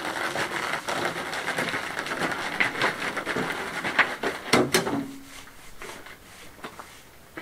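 A wheelbarrow rattling and clattering as it is pushed over rough gravel, with a few louder knocks before it stops about five seconds in.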